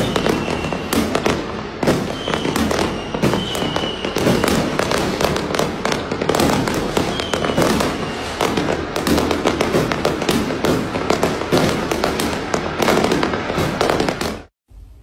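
Fireworks going off, a dense, continuous run of bangs and crackles that cuts off abruptly near the end.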